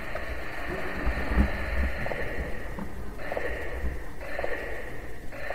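Replay of a just-captured EVP recording: a steady band of hiss that cuts out briefly about three times, over low dull thumps.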